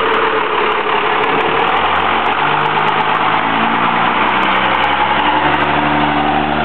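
12-valve Cummins inline-six turbo diesel of a Dodge Ram 3500 dump truck running as the truck drives past and away, with its engine note shifting in pitch several times from about two seconds in.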